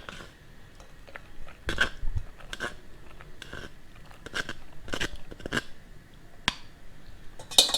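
Boiled macaroni being mixed with cornflour and flour in a bowl: irregular soft squelching scrapes and taps, with a louder clatter near the end.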